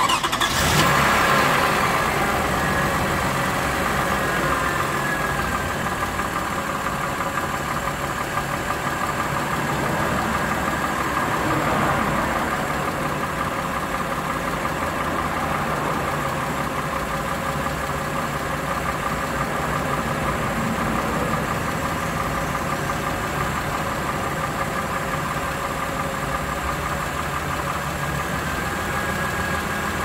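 Warm Lexus RX330 3.3-litre 3MZ-FE V6 running under the hood, flaring briefly about a second in, then settling into a steady idle with a slight rise in revs around twelve seconds in. It has a knock that the owner can't place and asks whether it is piston knock.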